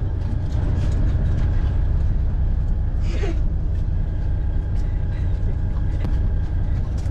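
Steady low rumble of a coach bus's engine heard from inside the passenger cabin, with faint rattles and a brief voice about three seconds in.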